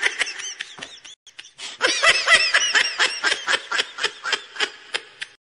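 A person laughing in quick, high-pitched rhythmic bursts: a short burst that trails off, a brief pause, then a longer fit of laughter that gradually dies away.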